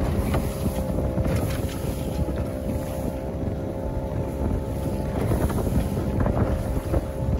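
Wind buffeting the microphone on a small sailing dinghy under way, with water rushing along the hull. A faint steady hum runs underneath.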